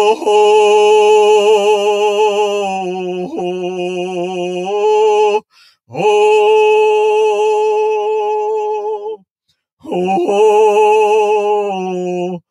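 One voice singing a Shaker song unaccompanied, in long held notes that waver. The singing comes in three phrases, with short breaks for breath about five and a half seconds and nine and a half seconds in.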